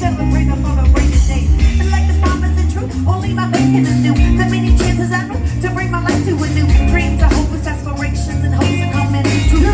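A live band playing a mid-tempo groove, with a heavy bass line and regular drum hits under the tune and no lead vocal.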